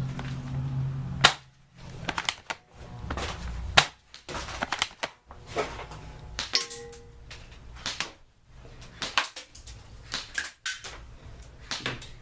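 Airsoft guns firing: a scattered, irregular run of sharp snaps, the loudest about a second in and again near four seconds.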